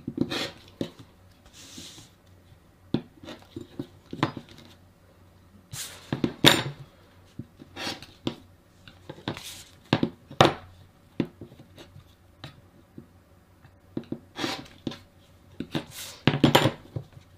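Rotary cutter slicing off the corners of a fabric-covered board against a ruler on a cutting mat, with the ruler set down and shifted between cuts: a dozen or so short scrapes and taps, spaced out with quiet gaps.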